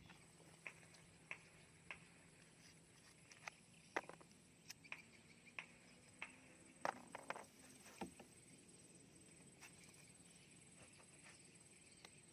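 Near silence broken by faint, irregular clicks and taps, a dozen or so, a few of them slightly louder about four, seven and eight seconds in, over a faint steady high-pitched tone.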